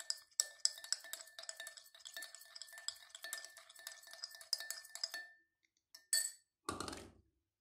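A spoon clinking rapidly against the sides of a ringing container as fabric dye is stirred, stopping about five seconds in. It is followed by two brief rustling knocks near the end.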